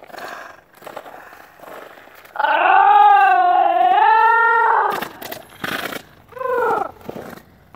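A long, loud wavering howl of about two and a half seconds, followed a second and a half later by a shorter cry that falls in pitch.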